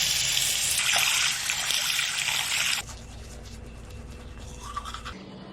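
Water running steadily, then cut off sharply about three seconds in.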